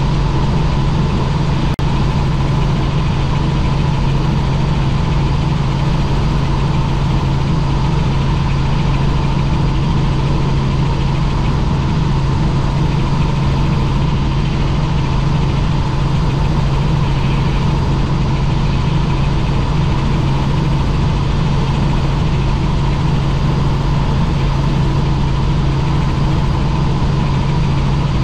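Helicopter running steadily: a loud, unchanging deep drone with a thin steady whine above it.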